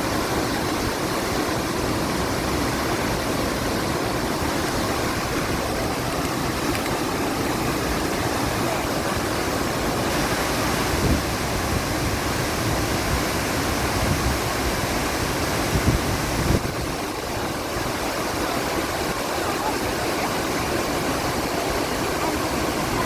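Waterfall rushing with a steady roar of falling water. A few brief low thumps stand out over it between about halfway and three-quarters of the way through.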